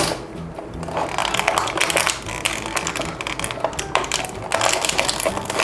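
Plastic toy packaging crinkling and clicking as it is handled, in dense bursts of crackle about a second in and again near the end.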